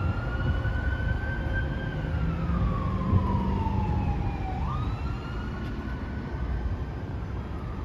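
Fire department emergency vehicle siren on a slow wail: the tone sweeps up sharply about half a second before the start and again about four and a half seconds in, then glides slowly down, over a low rumble of engines and traffic.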